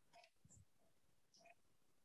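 Near silence, with a few faint ticks and a soft knock from a fork shredding trumpet mushrooms on a cutting board.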